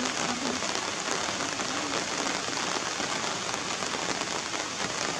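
Steady rain falling on wet surfaces, an even dense hiss with no letup.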